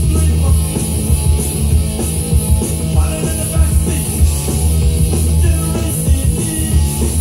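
Recorded music played loud through a DJ sound system, with a heavy, pulsing bass beat.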